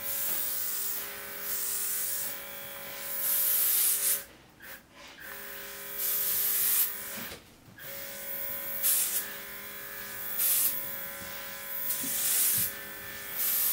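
A portable USB-C rechargeable airbrush's built-in compressor runs with a steady motor whine, and short bursts of air hiss come each time paint is sprayed. The motor cuts out briefly twice, about four seconds in and again about seven seconds in.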